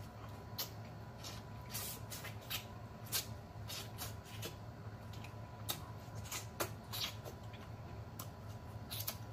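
Close-up mouth sounds of eating boiled turkey neck: irregular wet lip smacks and sucking clicks, about two a second, as the meat is sucked off the bone and the fingers licked.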